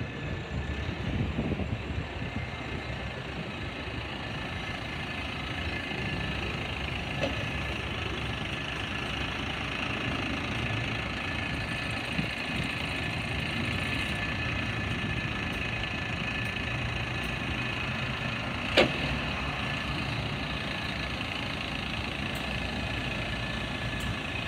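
Side-loading recycling truck's diesel engine running slowly and idling, with a steady high whine over the low rumble. A single sharp knock comes near the end.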